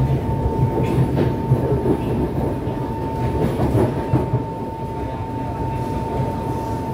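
Kawasaki C151 metro train heard from inside the carriage, running between stations. The wheels rumble on the track with scattered rattles, over a steady high whine.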